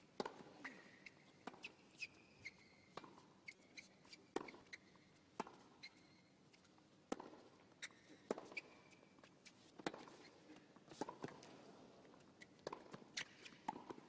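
Tennis rally on a hard court: faint, sharp racket strikes on the ball about every second, with ball bounces and short squeaks of shoes on the court surface.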